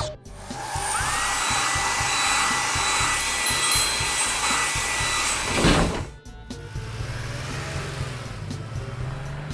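Cartoon car-wash machine sound effect: a whirring blower-like noise with a whine that rises about a second in and holds steady, ending in a whoosh near six seconds. A lower steady hum follows, with background music with a steady beat underneath.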